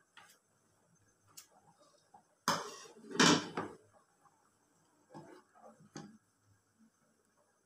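A ladle stirring and scraping in a pan of thickening milk, knocking against the pan in a few short bursts. The loudest two come close together about two and a half to three and a half seconds in, and smaller ones follow around five and six seconds.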